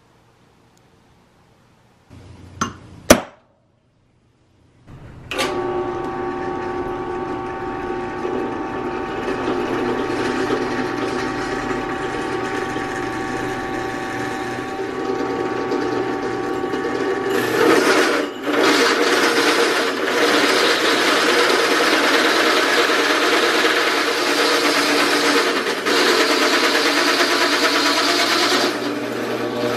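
Two sharp clicks, then a Ryobi 10-inch drill press starts about five seconds in and runs with a steady whine. From about 17 seconds a louder, coarser cutting noise is added as its hole saw bores through the workpiece, settling back near the end.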